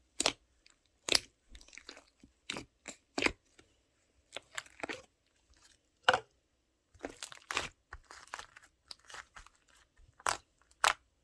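Yellow slime handled by hand, giving irregular sharp crackles and pops with softer squishing between.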